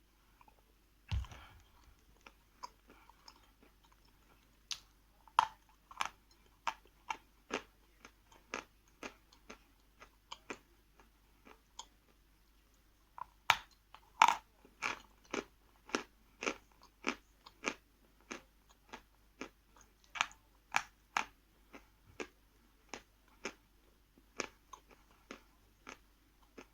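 A person chewing a piece of 'Barsuk' edible chalk: a thump about a second in, then crisp crunches at nearly two a second, with a brief pause about halfway.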